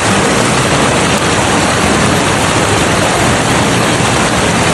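Loud, steady rush of mountain runoff water pouring down the slope after rain.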